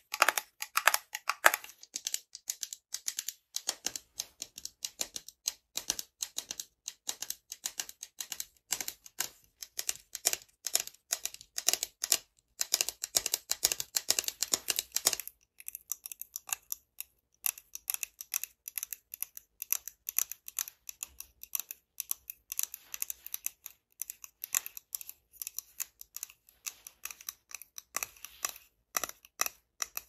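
Fingernails tapping quickly and continuously on a jar lid, then, after a short pause about halfway, on a small bottle, the clicks there sounding brighter and thinner.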